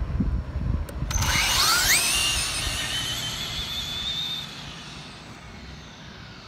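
RC drag car launching off the line: a sudden high electric-motor and gear whine about a second in that rises steeply in pitch as the car accelerates away, then holds and fades as it goes down the strip.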